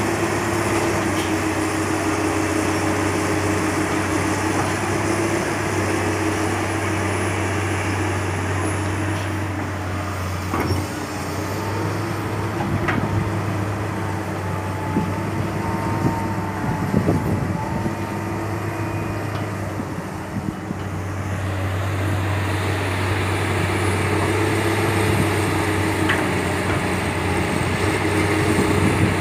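Komatsu PC200 hydraulic excavator's diesel engine running steadily while it digs into a pile of soil and rock. Scattered knocks and rattles come through past the middle, along with a thin steady high tone that lasts a few seconds.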